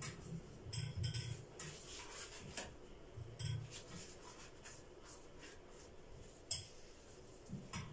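Pastry brush dabbing ghee onto phyllo sheets in an aluminium pan: soft rustling and scraping of the thin dough, with a few light clinks and thuds against the pan.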